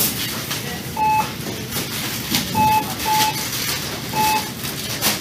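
Checkout cash register beeping as items are rung up: four short, identical high beeps, two of them close together near the middle, amid the clicks and rustle of goods being handled.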